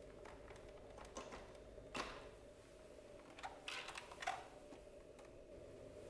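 Faint clicks and knocks of hard plastic as the cleaner head of a Dyson DC24 upright vacuum is handled and taken off: a single sharp click about two seconds in, then a quick run of clicks a second and a half later.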